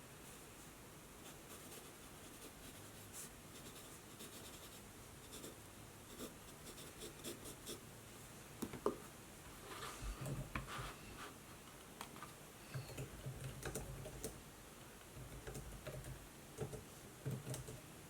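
Faint pen writing on notebook paper: scattered light clicks and short strokes at first, with the scratching growing louder and denser about halfway through, in several runs.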